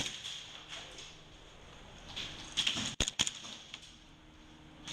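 Airsoft guns firing and BBs striking: one sharp snap at the start, then a quick cluster of about four snaps around three seconds in.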